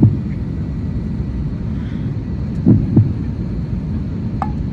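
Steady low rumble of an airliner cabin in flight, with a double low thump about three seconds in and a short tick near the end.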